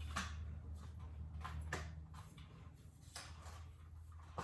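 Telescoping handle of a spin mop being lowered: a few light clicks and knocks, roughly one every second and a half, over a low steady hum.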